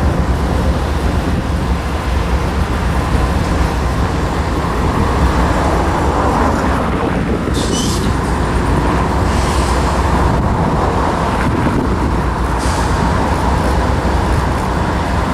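Steady low engine rumble with a noisy background, and a short hiss about seven and a half seconds in.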